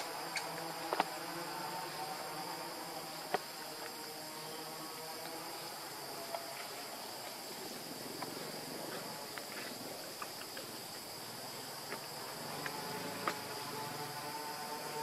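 Steady high-pitched insect drone, with a few short faint clicks about a second in, about three and a half seconds in and near the end.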